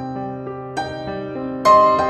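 Background music on piano: soft chords and single notes struck about once a second, each left to ring.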